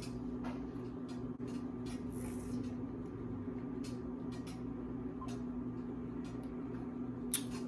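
Soft scattered clicks and taps of eating frozen dessert with a spoon from a cup, over a steady low hum.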